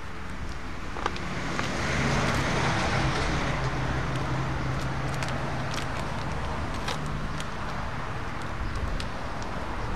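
A dried rabbit skin crackling as gloved hands work it, with scattered short clicks; it crackles because the skin has gone too dry. Under it, a steady low vehicle hum swells about two seconds in and eases off after about seven.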